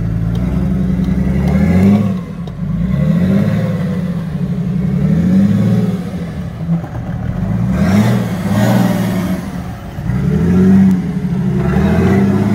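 Off-road 4x4's engine revving up and falling back again and again, about every three seconds, as it works through an obstacle. There is a rushing hiss about eight seconds in.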